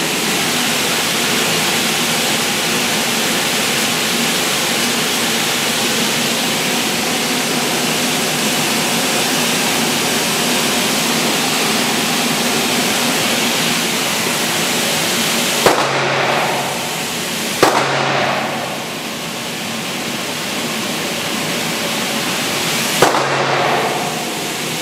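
Steady rushing hiss of an indoor range's ventilation, broken in the last ten seconds by three sharp gunshot reports, the second about two seconds after the first and the third about five seconds later.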